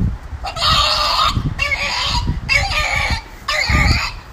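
French bulldog puppy's shrill 'battle cry': a run of four raspy yelps, each under a second, with short gaps between them. Low thumps sound underneath, one near the start and one near the end.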